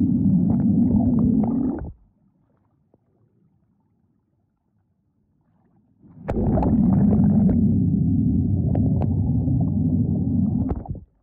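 Muffled water sloshing and gurgling with scattered clicks, in two long stretches that each stop abruptly, with a few seconds of near silence between them.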